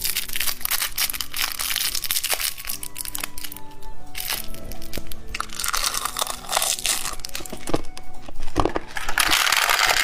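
Plastic candy packet being handled and torn open by hand: dense crinkling and crackling, with two louder stretches of rustling and tearing near the middle and the end. Background music plays under it.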